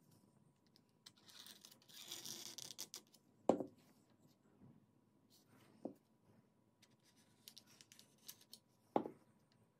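Wooden slingshot parts being handled on a hard tabletop. A scratchy rubbing sound comes about a second in, then three sharp knocks of wood against the table, the first of them the loudest.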